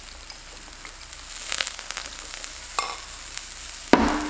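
Zucchini slices sizzling softly on a hot griddle pan, with light clinks as soy sauce is poured into a small glass bowl. A louder knock about four seconds in as the glass bowl is set down on the tray.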